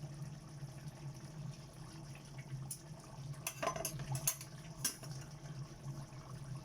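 Liquid bubbling steadily over a low hum, with a handful of sharp clicks or clinks between about three and five seconds in.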